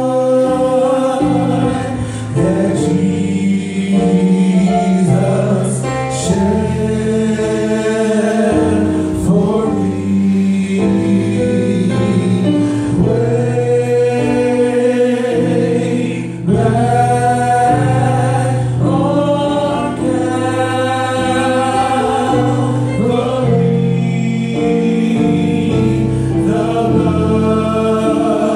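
Male gospel vocal quartet singing in close harmony into handheld microphones, moving through long held chords.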